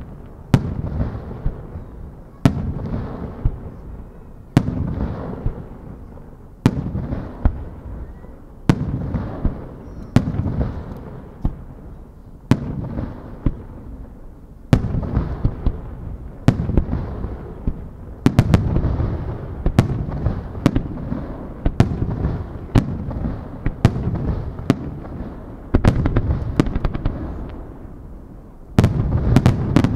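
Aerial firework shells bursting one after another, a sharp boom about every two seconds, each followed by a long rolling echo that fades before the next. Shorter sharp cracks fall between the booms, more often in the second half.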